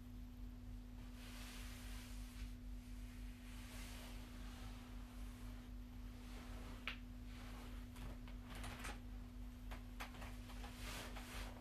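A steady faint hum on one tone, under a soft hiss that swells and fades, with a few faint clicks.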